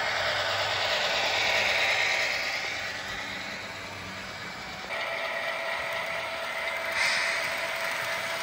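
HO scale model Norfolk Southern GP38-2 locomotive and gondola train rolling along the layout track: a steady mechanical whir of the model's motor and wheels on the rails. It is loudest as the locomotive passes about two seconds in, and it changes abruptly to a slightly different whir about five seconds in.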